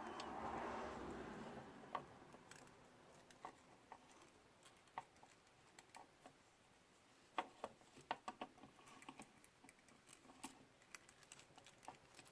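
Light clicks and taps from small plastic drone-camera parts being handled while a ribbon cable is threaded into a DJI Phantom 3 Pro gimbal camera. A soft rustle comes first, then scattered clicks, with a quick run of them about seven to eight seconds in.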